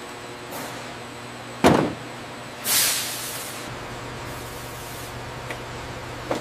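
Workshop sounds: a steady electrical hum, a loud thud about a second and a half in, then a short hiss of released air that fades over about a second. A couple of faint clicks follow near the end.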